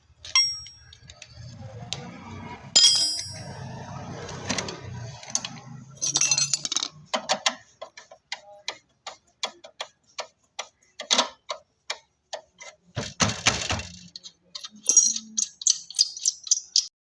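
Metal hand-tool work on a motorcycle chain kit. It opens with two ringing metal strikes among handling clatter, then goes into a long run of sharp, regular clicks, about two or three a second.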